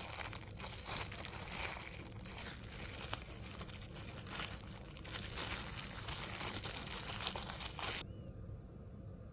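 Plastic packaging crinkling and crackling as it is handled and opened, stopping abruptly about eight seconds in.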